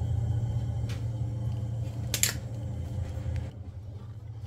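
A steady low mechanical hum, with a faint click about a second in and a sharper click about two seconds in. The hum drops away near the end.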